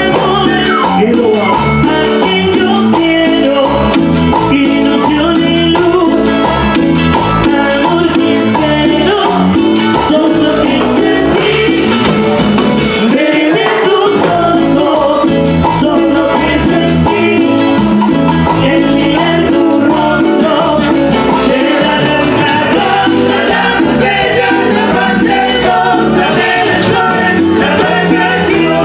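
Live Latin dance band playing with timbales, saxophone and drum kit behind a lead vocal. The bass and low drums drop out briefly about halfway through, then return.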